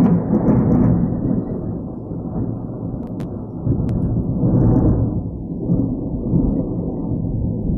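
Thunder rolling: a long, low rumble that is loudest at first, eases off, swells again about four seconds in, then dies away.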